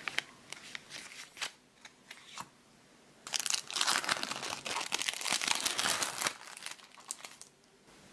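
Clear plastic food packaging crinkling as it is handled: a few crisp crackles, then about three seconds of dense crinkling from around three seconds in, tailing off into a few last crackles.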